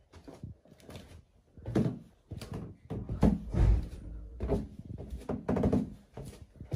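A run of irregular knocks, bumps and thuds, like doors or cupboards being opened and shut.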